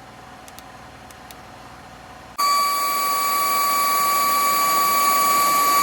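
Wirelume cordless handheld vacuum's brushless motor running with a steady high whine over a rush of air. It comes on abruptly about two and a half seconds in, after a few faint clicks.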